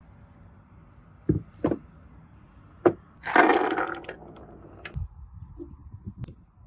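Handling noise from an old Colt .44 percussion revolver: three sharp clicks and knocks, then a short rough scraping rattle about three seconds in, followed by lighter taps.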